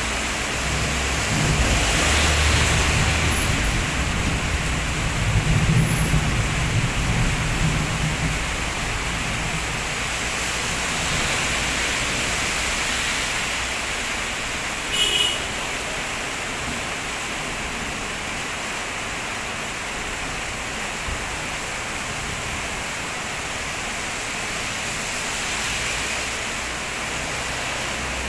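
Heavy rain pouring down steadily on the road. There is a low rumble through the first several seconds, and passing vehicles hiss on the wet road twice. A brief sharp clink comes about halfway through.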